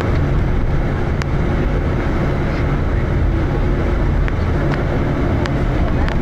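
Steady low running rumble of a moving vehicle, heard from inside it, with a few light clicks scattered through.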